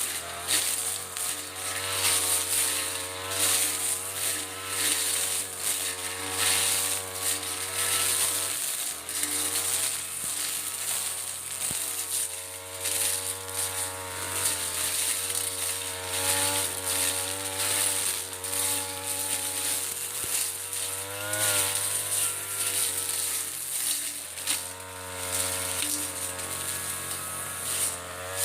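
Mitsubishi TU33 two-stroke brush cutter engine running at high speed while cutting ferns, its engine note wavering up and down as the blade takes the load.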